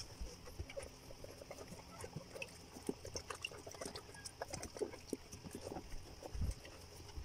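Faint, irregular small clicks and rustles from a Belgian Malinois whelping while a newborn puppy, still in its birth sac, is handled beside her.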